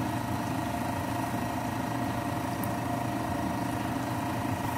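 A small motor humming steadily, with a low drone and a few higher steady tones.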